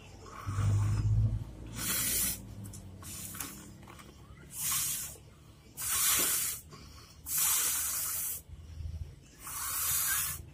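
Miniature homemade toy water tap spurting, with about five short bursts of hiss as the tap is opened and closed. A low rumble from handling comes in the first second or so.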